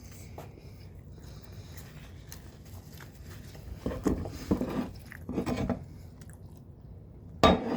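A person chewing and biting into a seafood po' boy sandwich, with a few louder bites or mouth noises in the second half and a sharp one near the end.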